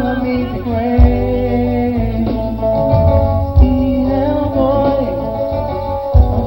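Music: a song with a singing voice over guitar and a heavy bass line, with a beat marked by sharp accents.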